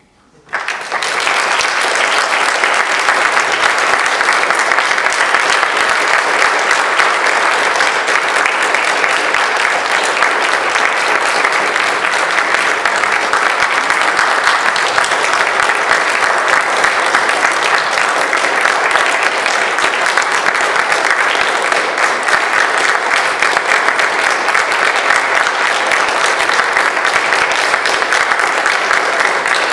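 Audience applauding, starting suddenly about half a second in and keeping up a steady, dense clapping throughout.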